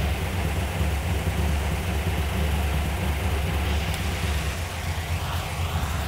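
Ford 312 Y-block V8 idling steadily with a low, even rumble.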